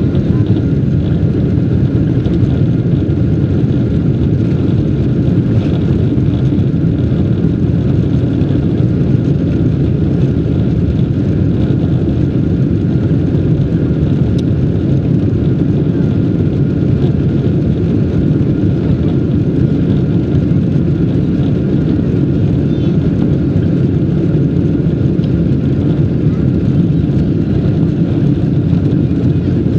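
Boeing 747-200 jet engines running, a steady low rumble with a faint high whine that stays even throughout.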